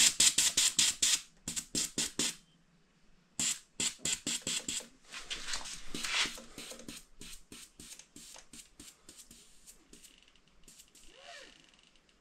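Rapid short hisses of air, about six a second, as a shock pump's bleed valve lets air out of a Fox Float X Factory air shock pumped to about 175 psi. The puffs stop briefly about two seconds in, then resume and grow steadily fainter as the pressure drops.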